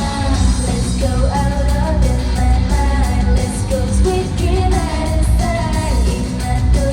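Live pop-rock performance: a woman singing the lead melody over loud band backing with a heavy bass and drum beat.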